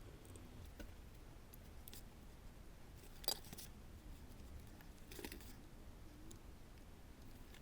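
A few faint, sharp clicks or snips over a low steady background hum, the clearest about three seconds in and another about five seconds in.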